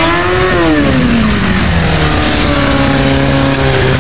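Sportbike engine revving: the pitch climbs, peaks about half a second in and drops back over the next second, then settles into a steady run.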